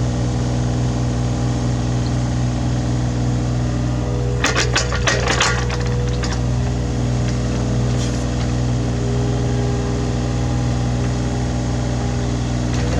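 Hitachi Zaxis 33U mini excavator's diesel engine running steadily under working load. A burst of clattering knocks comes about four and a half seconds in and lasts about a second.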